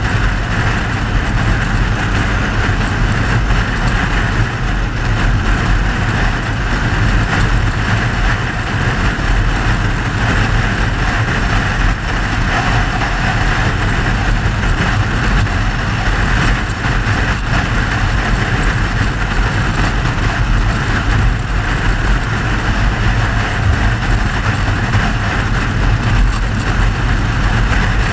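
A car driving steadily: a constant low engine and road rumble with a broad rush of noise over it, unchanging throughout.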